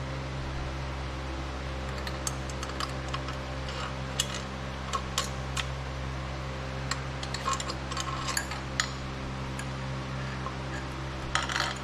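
Scattered light metallic clinks and taps as the motorcycle's stator cover and the nails used as guide pins are handled and worked onto the engine case, with a short scrape near the end. A steady hum runs underneath.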